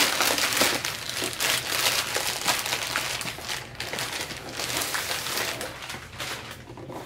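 A plastic poly mailer bag being torn open and crinkled by hand while a boxed kit is pulled out of it. The crinkling is dense at first and dies down near the end.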